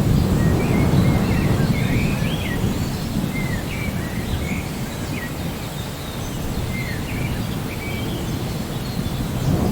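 Rain with a low rolling rumble of thunder that eases off about halfway through, and birds chirping over it in short calls.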